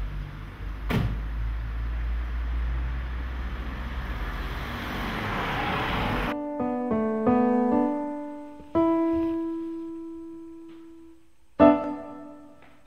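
Outdoor street noise with a low rumble and a sharp knock about a second in, cut off suddenly after about six seconds by solo piano: a few quick notes, a held chord that slowly fades, then a loud struck chord near the end.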